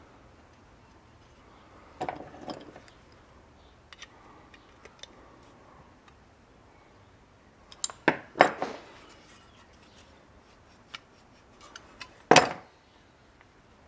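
Metal clicks and clinks of pliers and a brake-shoe lever, with its pin and retaining clip, being handled and squeezed into place on a rear drum brake shoe. There are a few sharp clinks a couple of seconds in, a quick cluster about eight seconds in, and the loudest clank just before the end.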